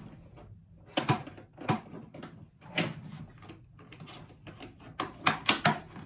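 Hard plastic knocks and clicks as the top section of a Festool dust extractor is set back onto its container and its side latches are snapped shut; a quick run of clicks comes near the end.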